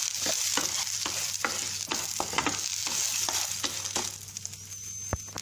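Curry leaves, shallots and dried red chillies sizzling in hot coconut oil with chana and urad dal, stirred with a spoon that clicks and scrapes against the pan. The stirring and sizzle ease off after about four seconds.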